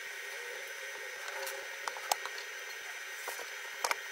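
A repair pick working along the edge of an iPad Pro's frame: a steady hiss with a few small sharp ticks of the tool about two seconds in and again near the end.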